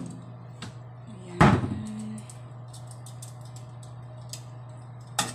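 A single loud clunk about a second and a half in, then scattered light clicks of a utensil working melting butter around a nonstick frying pan, over a steady low hum.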